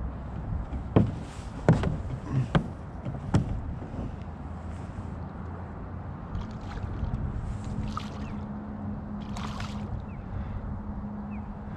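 A hooked redfish (red drum) splashing and thrashing at the surface beside a small boat, with four sharp splashes in the first few seconds and two more bursts of splashing near the end. A steady low hum comes in about halfway through.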